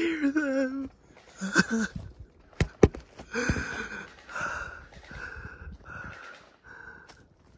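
A person breathing hard in a run of rasping breaths that fade over the second half. There is a short vocal sound at the start, and two sharp clicks a quarter second apart come just before the breathing.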